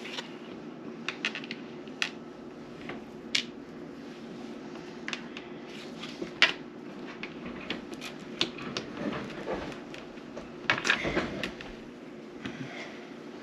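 Scattered light clicks and taps of cards and game pieces being handled on a table, with a quick cluster of clicks near the end, over a steady low room hum.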